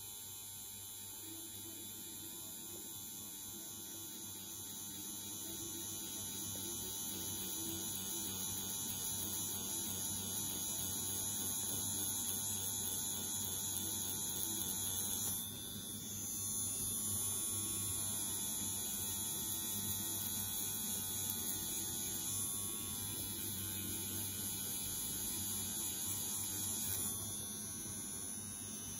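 Tattoo machine with a magnum needle cartridge running with a steady hum while packing red ink into skin. The hum dips briefly about halfway through.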